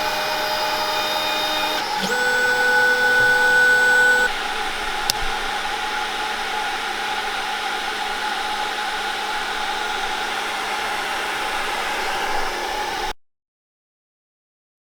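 Snapmaker 2.0 A350 3D printer running: a steady fan whir with stepper-motor tones that shift pitch twice as the axes move. The sound cuts off abruptly near the end.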